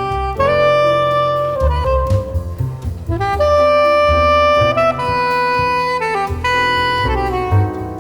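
Instrumental jazz music led by a saxophone playing long held melody notes over bass and drums.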